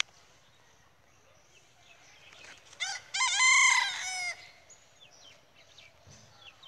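A rooster crowing once, about three seconds in, one loud call of about a second and a half.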